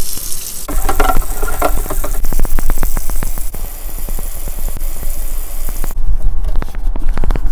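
Kitchen tap water splashing into a stainless steel bowl while rubber-gloved hands scrub it, with a rapid run of rubbing strokes and knocks against the metal; the stainless sink is then wiped down by hand.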